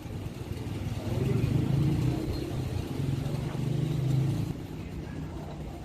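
A motor or engine running with a steady low hum, which drops sharply in level about four and a half seconds in.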